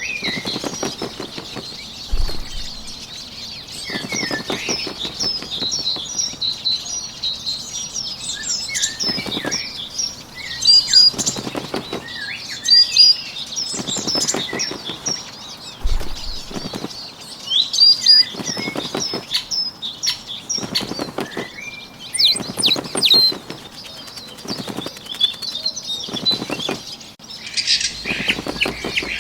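Fluttering bird wingbeats in short bursts every couple of seconds, over steady chirping and tweeting of small songbirds.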